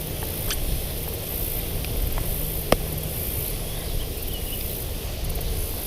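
Outdoor ambience: a steady hiss with a faint high-pitched insect drone and a low rumble, broken by one sharp click just under three seconds in.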